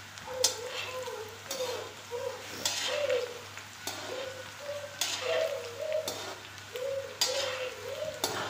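Chickpeas frying in hot oil in an iron kadai, with a steel slotted spatula scraping and knocking against the pan about once a second as they are stirred. A bird calls over and over in the background.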